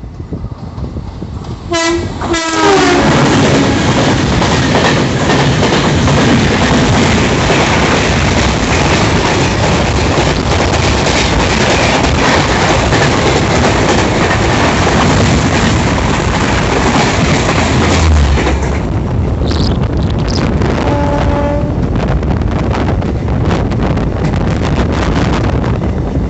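Passing express train on the adjacent track: its locomotive horn blares about two seconds in and drops in pitch as it goes by, then its coaches rush past close by with a steady rattle and clickety-clack of wheels over rail joints. The rush ends about eighteen seconds in, followed by a short horn note and a lower rumble.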